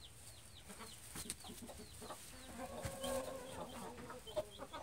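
American Buckeye hens clucking softly, with a drawn-out call about three seconds in. A string of faint, quick high chirps comes in the first second, and light clicks and rustles sound from the straw underfoot.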